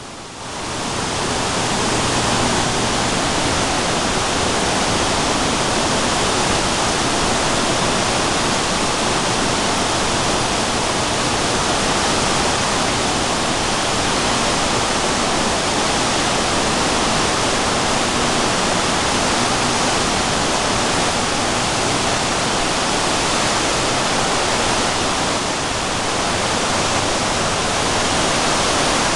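Steady roar of a large waterfall at full flow and the churning whitewater rapids below it, fading in over the first two seconds.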